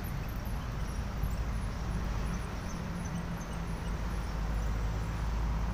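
Steady rumble of traffic on the flyover overhead, with a low hum setting in about halfway through.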